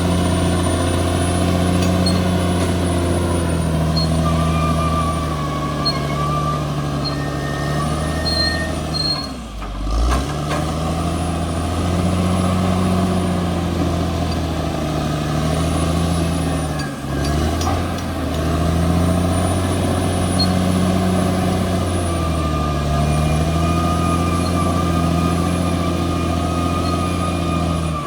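Caterpillar D6R XL bulldozer's diesel engine running under load, its pitch rising and falling, with a high whine above it. The sound dips briefly twice.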